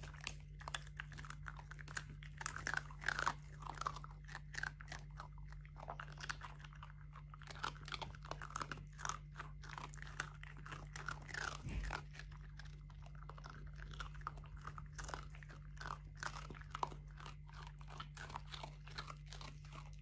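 Dogs chewing crunchy treats: a quick, uneven run of crisp crunches over a faint steady low hum.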